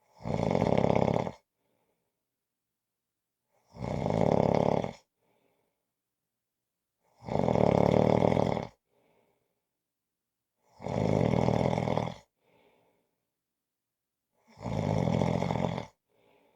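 A person snoring in a regular rhythm: five snores, each a little over a second long, about every three and a half seconds, with a faint short tail after most of them.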